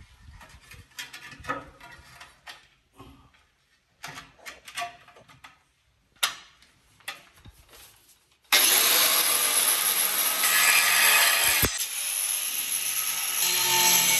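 Scattered knocks and scrapes of a floor tile being handled and set, then about eight and a half seconds in an angle grinder starts up and cuts into a floor tile, a loud steady grinding that drops out briefly once before running on.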